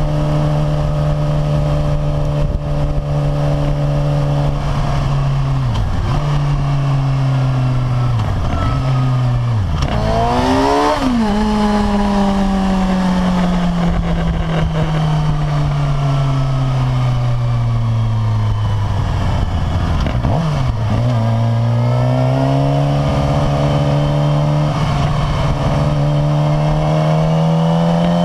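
Suzuki GSX-R600's inline-four engine running while the motorcycle is ridden. The pitch holds fairly steady with a few brief dips, jumps up about ten seconds in, then falls slowly for several seconds as the bike slows, and climbs again in the last few seconds.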